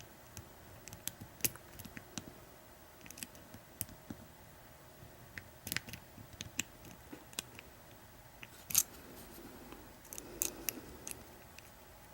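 Irregular small metallic clicks and light scrapes of a hook pick working the pin stack inside an American 1100 padlock held in a false set under tension, with a few sharper clicks scattered through.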